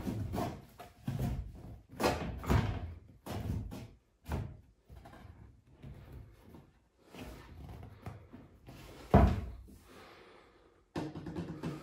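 A large chipboard panel being handled and shifted on a tiled floor: a run of knocks and bumps with scraping in between, and one loud thud about nine seconds in.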